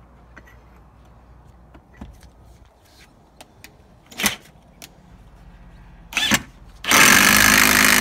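Ridgid cordless impact driver driving a screw through a wooden board into a block wall: two short bursts about four and six seconds in, then a loud, steady run from about seven seconds in.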